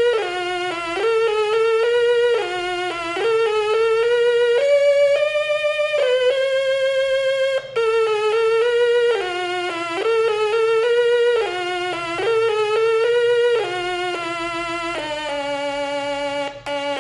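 Instrumental music: a slow melody of held notes with vibrato, the pitch changing about once a second.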